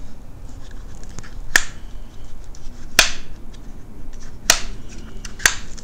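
Spring-loaded plastic rod retainers on a Plusinno wall rod rack snapping shut, four sharp clicks about a second and a half apart, the last two closer together.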